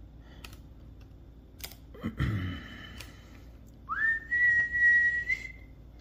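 A man whistles one note, sliding up into it and holding it steady for about a second and a half. Before it come a few soft computer keyboard and mouse clicks.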